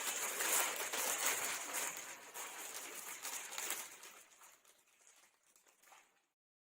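Packaging rustling and crinkling as a speaker is pulled out of its box, busiest for the first few seconds and then dying away.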